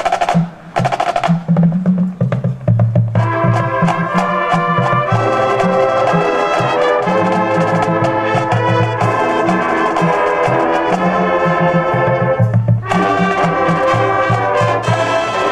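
Drum and bugle corps playing: the drum line, with pitched bass drums, plays alone at first, then the full bugle horn line comes in about three seconds in with loud, sustained chords over the drums.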